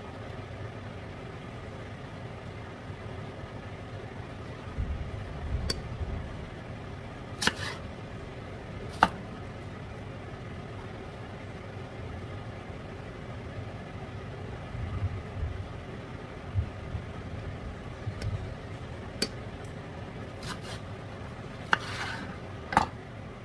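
Napa cabbage leaves being handled and set down on a wooden cutting board, with a few soft thumps and scattered sharp clicks and knocks, and a kitchen knife cutting through the leaves onto the board near the end. A steady low hum runs underneath.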